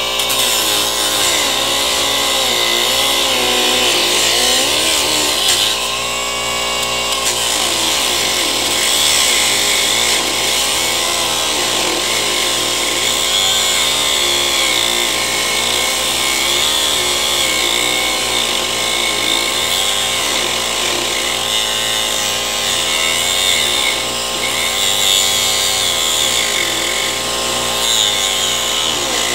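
Handheld electric power tool running continuously, its pitch wavering up and down throughout.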